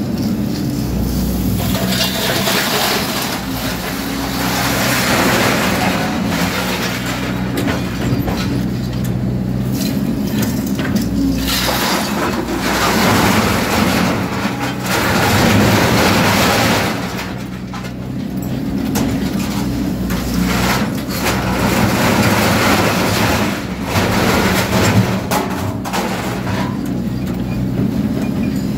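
Excavator diesel engine running steadily under hydraulic load while its shear attachment crunches, grinds and scrapes through scrap steel in several drawn-out spells.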